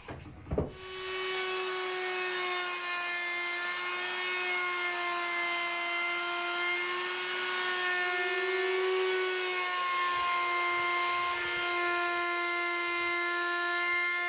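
Plunge router with a flush trim bit running at full speed, a steady high-pitched whine, as it trims the inside edges of laminated plywood flush to a template. A few short knocks come in the first half second, before the whine sets in.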